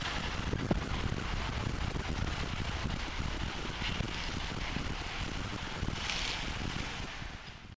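Steady low rumble and hiss of a long freight train rolling away, fading out just before the end.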